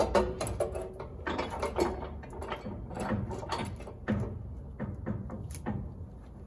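Hand ratchet wrench clicking in short, irregular strokes, with metal clinks, as nuts are run onto the winch-mount bolts.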